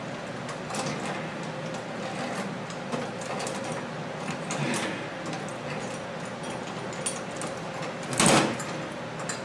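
Light clicks and rattles of metal parts being handled, with one short, louder clunk about eight seconds in, over a faint steady hum.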